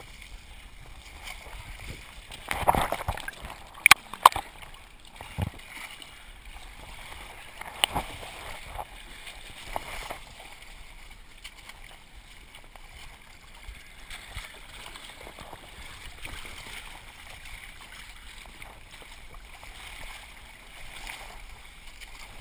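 Scraping, knocking and muddy-water sloshing as a competitor crawls through a mud-and-log obstacle with a body-worn action camera, the loudest knocks about three to five seconds in; faint voices in the background.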